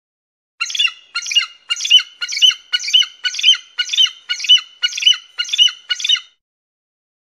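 An eagle calling: a series of about eleven short, shrill, piercing calls, roughly two a second, starting about half a second in and stopping a little after six seconds.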